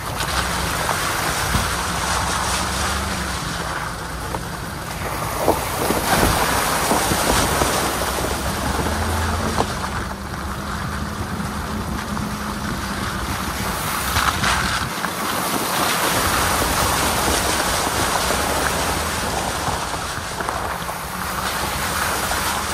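A truck driving on a muddy gravel dirt road, heard from a microphone mounted low beside the front wheel. Steady wind noise on the microphone over tyre rumble and engine hum, with water splashing as the tyres go through puddles, and a few sharp knocks from stones.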